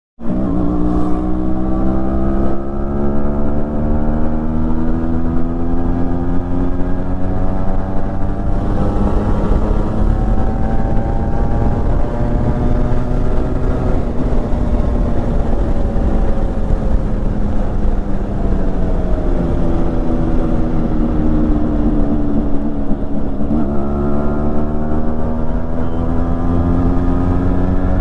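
Yamaha RX-series two-stroke single-cylinder motorcycle running on its stock exhaust. The engine pitch climbs slowly, eases down, then drops sharply twice before rising again.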